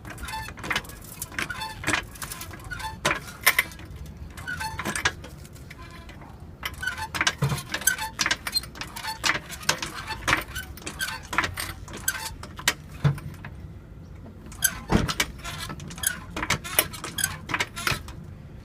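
Hydraulic floor jack being pumped to lift a car: irregular metallic clicks and clanks from the handle strokes, several a second at times.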